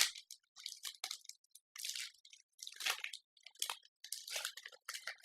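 Close rustling and crinkling of trading cards and booster-pack wrapping being handled, in short irregular bursts.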